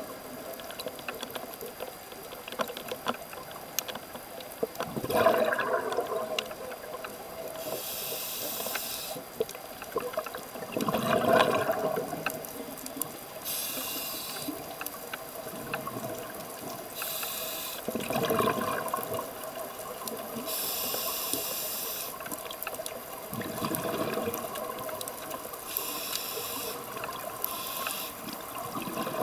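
Scuba diver breathing through a regulator underwater: hissing inhalations and bubbly, gurgling exhalations, about one breath every five to six seconds.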